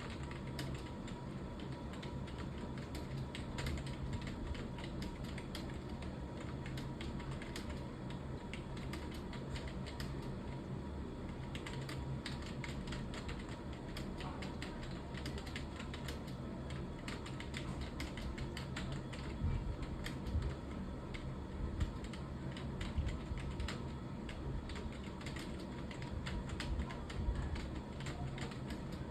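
Fast, continuous typing on a computer keyboard, keystrokes clicking in an unbroken stream, with a few heavier strokes in the second half, over a steady low hum.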